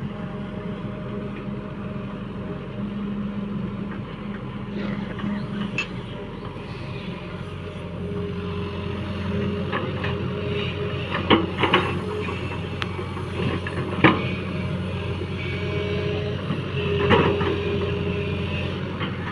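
Diesel engine of a JCB 3DX backhoe loader running steadily under load while it works, with a few sharp metallic knocks from the machine partway through.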